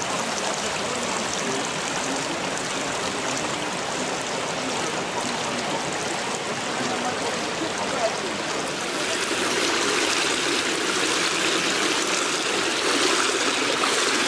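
Steady rushing and trickling of running water, growing a little louder about nine seconds in.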